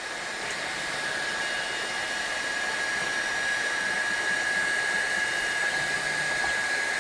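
Kingroon 3D180 3D printer's cooling fans whirring steadily: a constant hiss with a steady whine. A fainter, higher whine joins for a few seconds in the middle.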